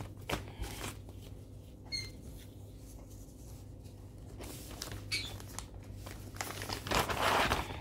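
Quiet handling noises from a cross-stitch piece and other craft materials being moved about: a few soft taps and clicks, a faint squeak about two seconds in, and a longer rustle near the end, over a low steady hum.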